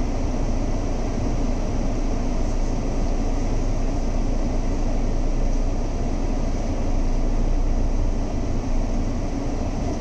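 Steady in-cabin rumble of a Mahindra XUV700 automatic driving slowly, with the air-conditioning blower running on full.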